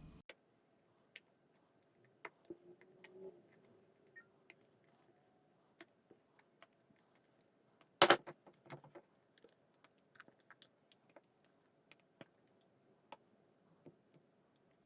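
Scattered light clicks and taps over a faint steady hum, with one loud knock, followed by a few quick rattling clicks, about eight seconds in.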